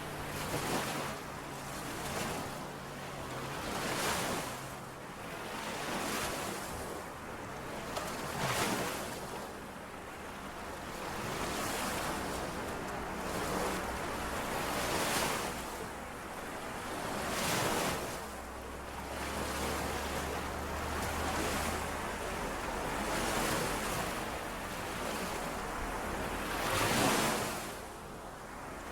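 Small lake waves washing in and out against the shore, each wash swelling and falling away every one to three seconds.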